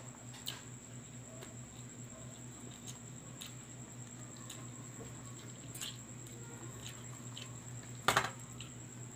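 Scattered small wet clicks and smacks of roasted chicken being pulled apart by hand and chewed, with a louder smack about eight seconds in. A steady low hum and a faint high-pitched whine run underneath.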